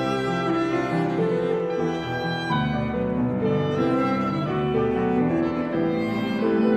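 Live classical chamber trio: oboe and bowed cello playing sustained melodic lines over a Fazioli grand piano.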